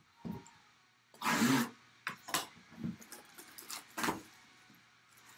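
Plastic shrink wrap on a cardboard box crinkling and rustling as hands grip and work it, in a series of irregular bursts; the loudest comes about a second and a half in.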